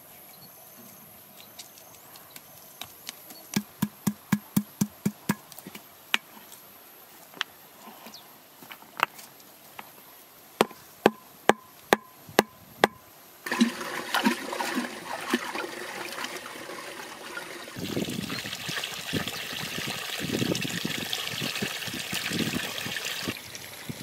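Sharp knocks of stones being set in place: a quick run of clicks a few seconds in, then scattered knocks. About halfway through, water starts running and splashing steadily as it pours from clay-pot spouts set in a mud wall into a pool.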